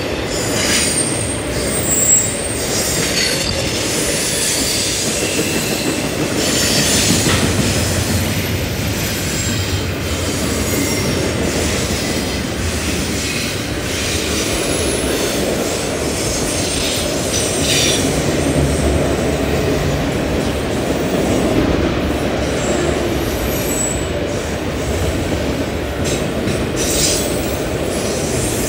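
A CN freight train's double-stack container cars and autorack cars rolling past close by: a steady rumble of steel wheels on rail, with high-pitched wheel squeals coming and going.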